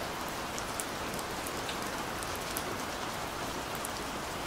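Steady rain: an even hiss with scattered sharp ticks of drops.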